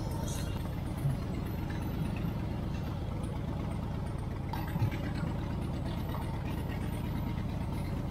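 Harley-Davidson touring motorcycle's V-twin engine idling steadily, close up, with a couple of brief light knocks about one and five seconds in.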